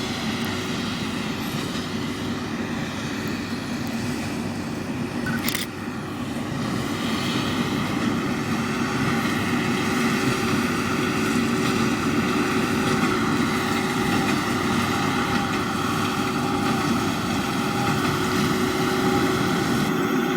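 John Deere 7530 tractor's six-cylinder diesel engine running steadily under load with the baler, getting a little louder after about six seconds. A single sharp click sounds about five seconds in.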